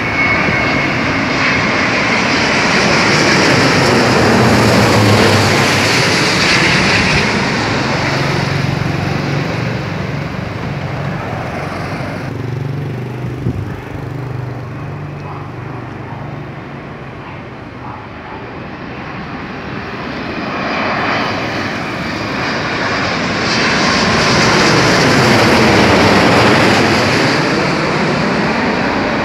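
Twin-engine jet airliners on landing approach fly low overhead, one after another. The jet noise swells to a peak about five seconds in and fades. After a cut it swells again to a second loud peak near the end as a Boeing 787, gear down, passes directly overhead.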